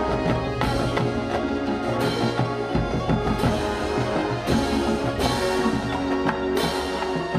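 Marching band music: a full ensemble playing sustained chords, with bright accented crashes every second or so.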